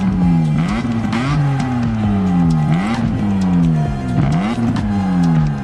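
BMW E46 M3's inline-six engine being free-revved while parked, heard from the exhaust: the revs rise quickly and fall away more slowly, about once every second and a half.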